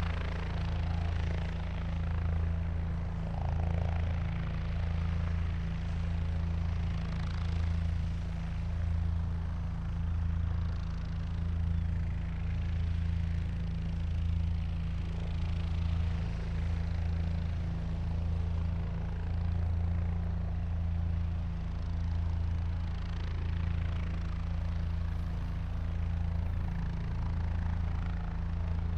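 Helicopter running steadily with its rotor turning: a deep, even throb under engine noise, swelling gently in loudness every couple of seconds.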